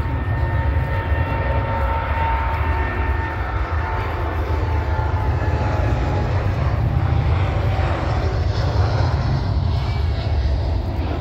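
Jet airliner engines at takeoff power: a loud, steady rumble with a high whine that fades about halfway through.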